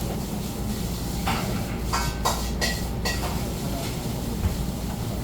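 Steady low hum of restaurant room noise, with a short run of clinks and clatter, like dishes or utensils, between about one and three seconds in.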